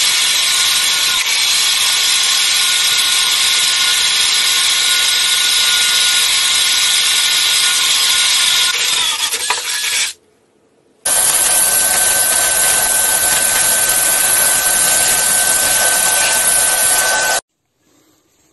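Electric drill boring into wood with large wood-boring bits, the motor whining steadily as the bit shaves the wood. It runs for about ten seconds, breaks off for a second, then bores again for about six seconds and stops.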